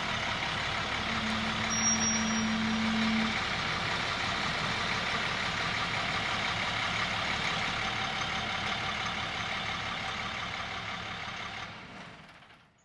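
Diesel engine of a 2001 International armored SWAT truck running steadily. A steady hum joins for about two seconds near the start, and the sound fades out near the end.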